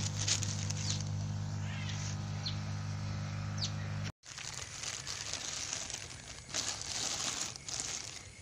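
A steady low electric hum, as of a small aquarium air pump running, that cuts off suddenly about four seconds in. Then cloth and plastic sheeting rustle as the black cloth wrapping is handled and pulled off the bucket.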